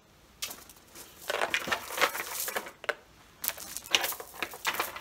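Strands of plastic bead necklaces clattering and clicking together as they are pulled on over a head, in irregular bursts.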